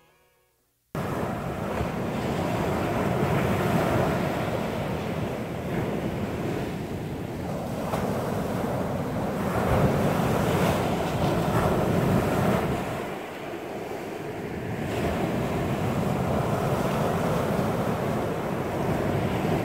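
Ocean surf washing in, swelling and easing every few seconds, with wind buffeting the microphone; it starts abruptly about a second in.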